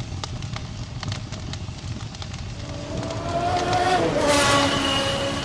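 Tuned 1.8-litre naturally aspirated four-cylinder engine running with a regular ticking knock. About three seconds in it is revved, rising in pitch and then dropping back. The knock is a fault in the fresh rebuild, which the owner suspects comes from one connecting rod or its bearing.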